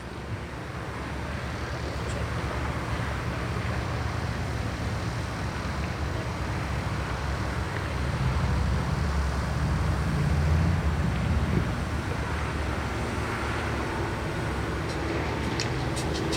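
Steady outdoor rumble and hiss of engines idling in a lot full of parked cars, growing slightly louder partway through, with a few clicks near the end.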